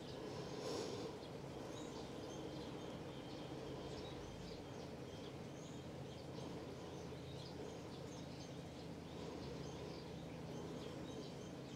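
Faint outdoor ambience: small birds chirping now and then over a low steady hum, with a brief soft noise about a second in.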